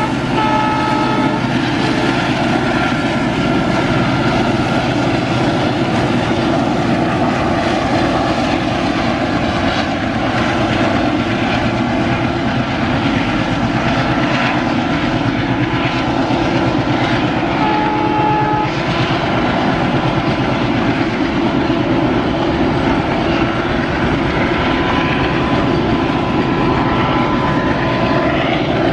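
Twin WDG3A ALCO diesel locomotives working hard, their engines running loud and steady under a heavy container train, with wheels and wagons rumbling along the rails. A short horn sounds at the start and again about eighteen seconds in.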